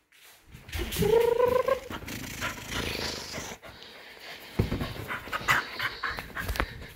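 Double merle Koolie puppy giving one short whining cry about a second in, followed by rustling, scuffling and a few soft thumps as she scrambles on the couch cushions during play.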